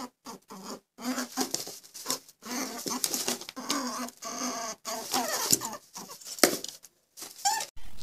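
Short-beaked echidna giving a string of short squeaky grunts and snuffles in quick, irregular succession.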